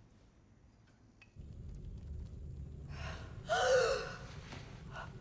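A woman gasps sharply and cries out about three and a half seconds in, with a shorter breath just before the end. Under it a low rumble starts about a second and a half in.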